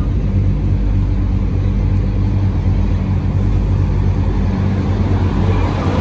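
Steady low engine drone of road traffic, with a double-decker bus drawing near and passing close by near the end, its engine and tyre noise swelling.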